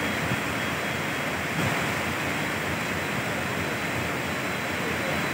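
Steady rushing roar of a flash flood in heavy rain: floodwater pouring through and torrential rain falling, with no single event standing out.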